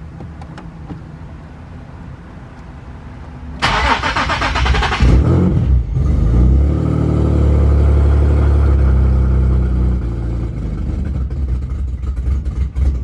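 Nissan 370Z's turbocharged 3.7-litre V6 cranked and started on its freshly flashed ECU tune. It catches about four seconds in, idles high for a few seconds, then settles a little lower.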